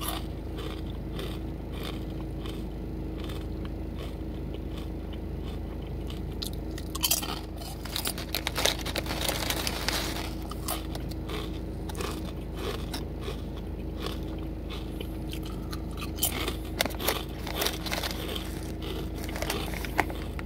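Crunching of kettle-cooked potato chips being bitten and chewed, with the foil chip bag crinkling as a hand digs into it. There is a busier stretch of rustling and crunching about 7 to 10 seconds in.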